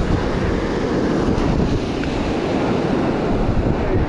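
Steady wind buffeting the microphone over surf washing up the beach.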